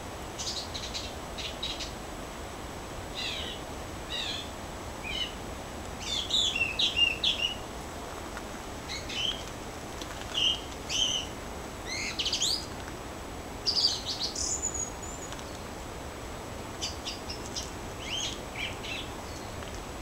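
Forest songbirds calling: short bursts of high chirps and whistled notes, some sweeping quickly up in pitch, coming every second or two. The loudest phrases fall in the middle, and there is a brief lull before the calls resume near the end, over a steady low hiss.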